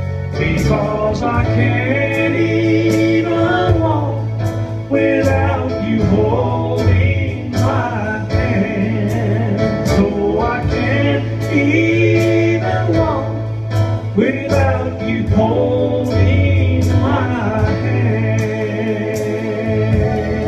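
Male voice singing a slow gospel song into a microphone through a PA, over electronic keyboard accompaniment with a steady bass line and a steady beat.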